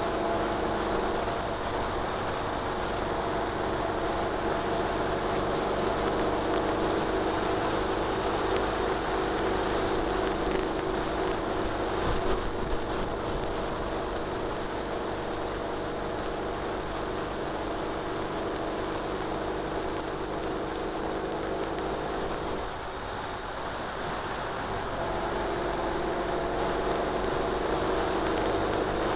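Ural Retro sidecar motorcycle's flat-twin engine running steadily at road speed, with wind and road noise. Around three-quarters of the way through, the engine note drops away for a couple of seconds as the throttle eases off, then picks back up.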